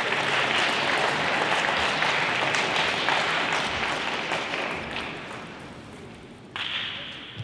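Audience applauding a won point in a table tennis match, dying away over about six seconds.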